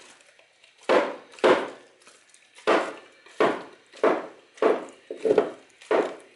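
A dog chewing a frozen raw chicken back, each bite a sharp crunch of frozen meat and bone. About eight crunches come at an uneven pace, roughly one every half second to second, with short quiet gaps between.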